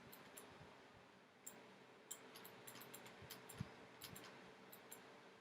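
Faint computer mouse clicks, about a dozen at irregular intervals, over quiet room tone.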